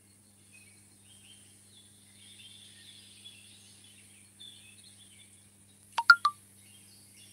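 Faint songbirds chirping over a low steady hum and a high hiss. About six seconds in, three sharp clicks in quick succession are the loudest sound.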